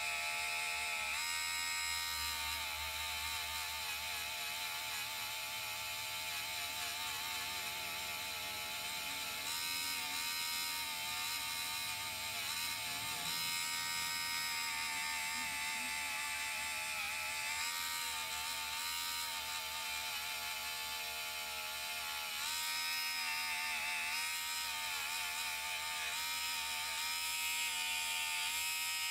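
Small Harbor Freight rotary tool running steadily with a polishing wheel, buffing scratches out of a gold tooth grill. Its high whine shifts in pitch a few times.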